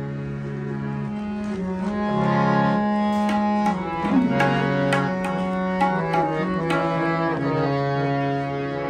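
Harmonium playing held chords that change every second or so, with tabla strokes that become frequent after about three seconds: the instrumental lead-in of a kirtan before the voices come in.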